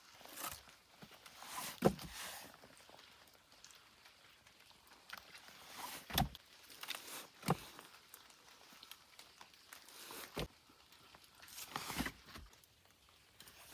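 Kindling being laid inside a clay dome oven to build a fire: dry twigs and leaves rustling, with a handful of sharp knocks and snaps a few seconds apart as sticks strike the oven floor and each other.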